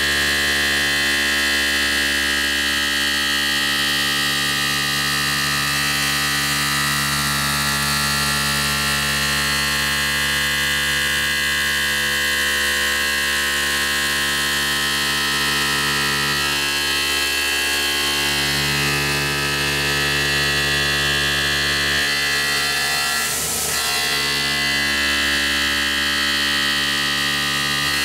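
Tormach CNC mill cutting a circular pocket into an aluminum plate with an end mill: a steady machining hum made of many held tones. A short hiss comes briefly near the end.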